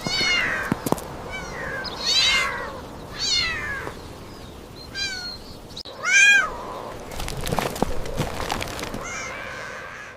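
Cats meowing repeatedly, about seven separate meows, the loudest about six seconds in. A few sharp clicks sound right at the start.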